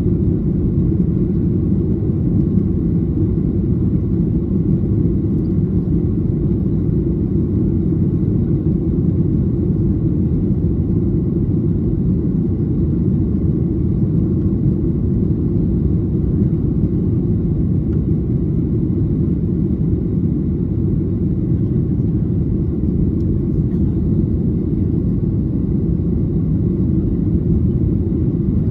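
Steady cabin noise inside a Boeing 737-800 in flight: a constant low rumble of engines and airflow, with a faint thin whine above it.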